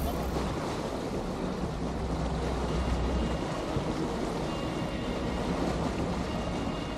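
Steady wind noise on the microphone and water rushing past a fishing boat under way at sea.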